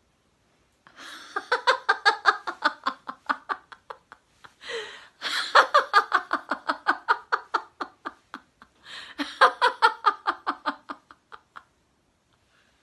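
A woman laughing heartily in three long bouts of rapid ha-ha pulses, about six a second, with a gasping breath before the second bout. This is the deliberate laughter of a laughter-yoga 'giggle phone' exercise.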